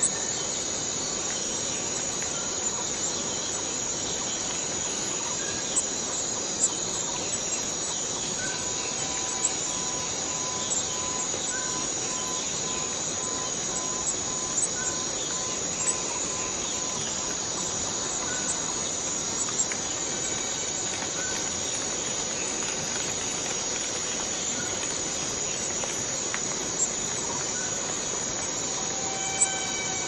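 Rainforest cicadas singing in a continuous, steady high-pitched drone, with a few brief sharp clicks scattered through.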